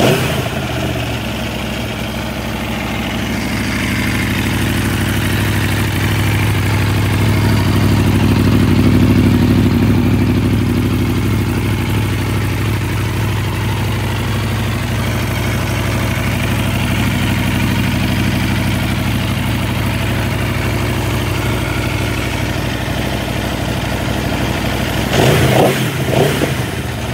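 Aprilia Tuono V4 1100RR's 65-degree V4 engine idling steadily, then blipped twice with quick revs near the end.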